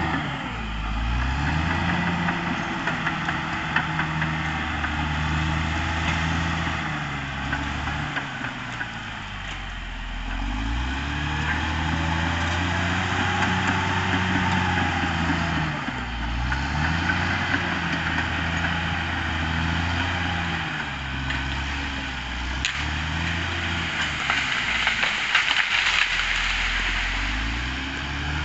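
Caterpillar D6R XL bulldozer's diesel engine working under load. Its pitch dips and climbs back every few seconds as the load comes on and off.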